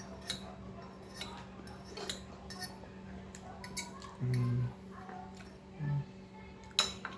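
Spoon and fork clinking and scraping against a plate while eating fried noodles: scattered light clicks, with one sharper clink near the end. Twice in the middle there is a short low hum, like an "mm" from the eater.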